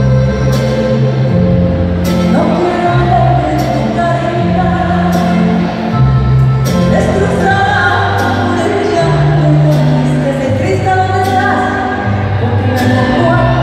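A woman singing a song live into a microphone with a band accompanying her, the bass notes shifting every second or two under the melody.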